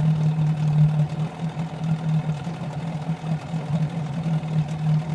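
Brand-new small engine idling unevenly, its steady low note pulsing and wavering: the sputtering ('sneezing') that the owner cannot explain.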